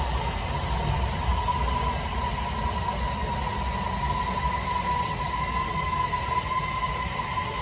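A Beijing Subway Line 8 train running past the platform behind the screen doors. It makes a steady electric whine over a low rumble, and the whine dips slightly in pitch near the end.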